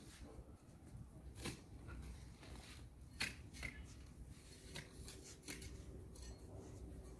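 A long-handled garden tool scraping at the soil and grass along a lawn edge: a few short, sharp scratching strokes spaced about a second or more apart.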